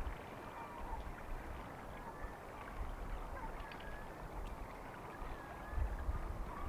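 Outdoor lakeside ambience: wind buffeting the microphone in low rumbling gusts, one at the start and another about six seconds in, over a steady wash of water, with faint thin calls of distant gulls.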